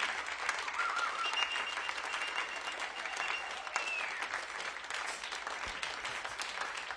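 Audience applauding after a tune ends, with one long whistle held for a couple of seconds, starting about a second and a half in.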